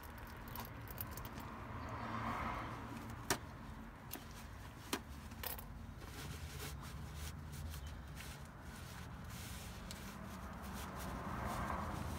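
Paper towels rustling and wiping inside an open differential housing as leftover gear oil and brake cleaner are mopped out, with two sharp clicks about three and five seconds in, over a faint low rumble.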